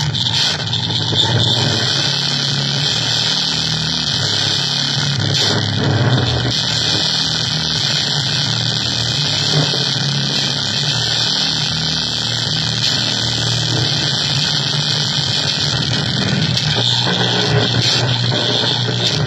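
Harsh electronic noise music from keyboard and drum machine: a dense, steady wall of distorted noise with a heavy low rumble under bright hiss, with no clear beat.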